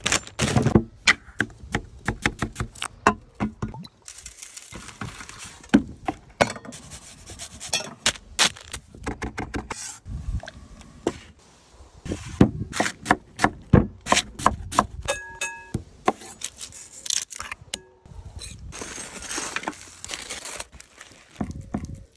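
Close-miked food-prep sounds in quick succession: a plastic bag of potatoes crinkling as it is opened, then many sharp clicks, taps and scrapes of a knife and a spoon on a board and a metal tray, ending with a knife cutting through a rack of barbecued ribs.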